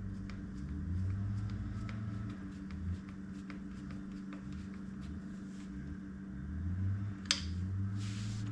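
Small metallic clicks and taps of hand tools as the speedometer cable's retaining screw is put back in, over a steady low hum. A sharper click comes about seven seconds in, and a short hiss follows near the end.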